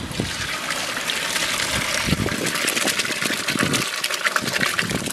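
Water and soaked gram lentils poured from a plastic bucket into a large aluminium cooking pot of hot curry, a steady splashing gush that turns into a denser, crackly patter about two seconds in as the lentils pour in.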